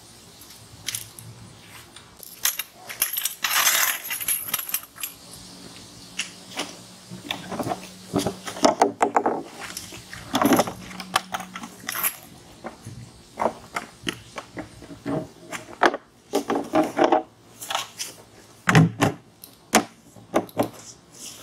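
Folding webbed lawn chairs being handled, opened and set down: an irregular run of clacks, knocks and small clinks.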